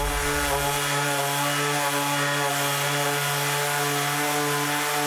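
ROK 135W orbital sander's electric motor running at a steady speed, a constant hum with a buzz above it.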